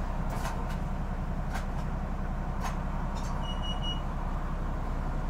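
Mitsubishi Fuso midibus (TKG-MK27FH) diesel engine idling steadily at a stop, heard from inside the cabin, with a few light clicks and a short run of high beeps a little past the middle.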